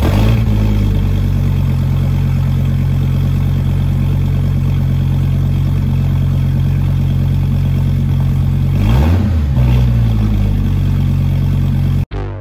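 Dodge Viper's V10 engine idling steadily after starting up, with one brief rev that rises and falls about nine seconds in. The sound cuts off abruptly near the end.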